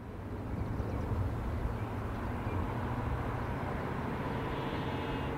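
Diesel locomotive engine running, a steady low rumble.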